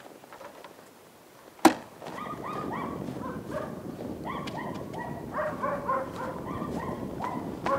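A car's rear hatch slammed shut, a single loud bang just under two seconds in. After it comes a run of short, pitched animal calls, several a second, over a crunching haze of footsteps in snow.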